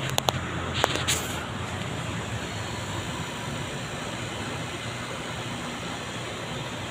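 Steady rushing noise with a low hum underneath, and a few sharp clicks in the first second.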